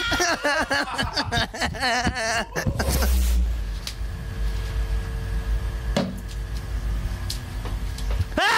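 Excited, high-pitched voices for about three seconds, then a low steady drone with several held tones. A single knock comes about six seconds in.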